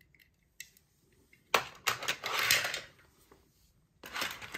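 Light clicks and clatter of small hard objects, with two short rustling stretches: the first, about a second and a half in, lasts over a second; the second is near the end.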